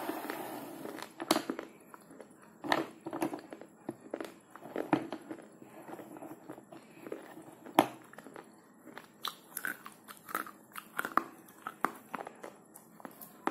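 A person biting and chewing slate pencils: a string of dry, sharp crunches at irregular intervals, the loudest about eight seconds in.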